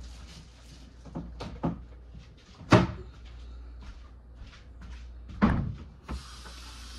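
A few light knocks, then two loud bangs about three seconds apart, of something being shut in a kitchen. A steady hiss starts near the end.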